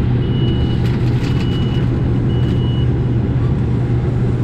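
Combine harvester running steady, heard from inside the cab, with three high beeps of about half a second each from the in-cab monitor in the first three seconds. A few light clicks or rattles come through as well.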